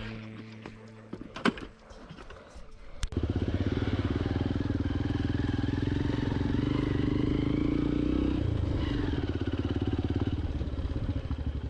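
A few faint clicks, then a motorcycle engine comes in suddenly about three seconds in and runs steadily with an even, rapid firing beat and small changes in pitch.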